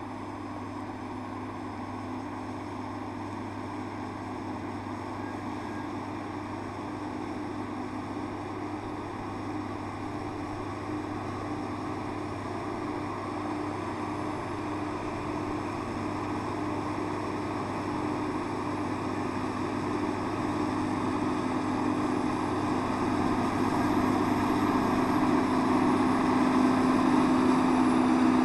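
John Deere 6930 tractor's six-cylinder diesel running at a steady working pitch under ploughing load, pulling a reversible plough. It grows steadily louder as the tractor comes closer.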